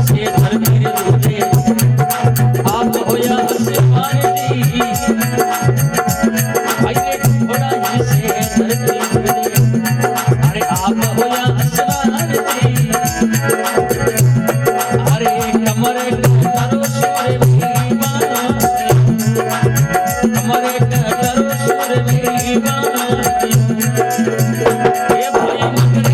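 Instrumental interlude of Rajasthani folk bhajan music: fast, steady hand percussion and rattles over sustained melodic instruments, with no singing.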